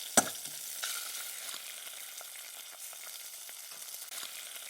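A steady crackling hiss dotted with small clicks, with one sharp knock just after the start.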